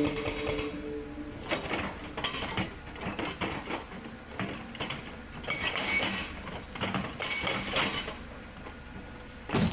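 Hydraulic rock breaker on an excavator hammering rock, heard as several bursts of rapid metallic knocks.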